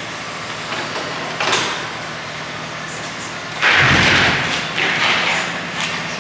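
Cub Cadet tractor's small diesel engine running steadily with a fast low clatter. A loud rushing noise comes about four seconds in and lasts about a second, followed by a shorter one, with a brief burst about a second and a half in.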